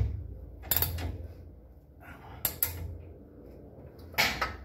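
Ratchet wrench cranking a leaf-spring spreader on a Model A Ford's transverse spring, giving a few separate metallic clicks and clanks, the last a short cluster near the end, as the spring is spread to take a new shackle.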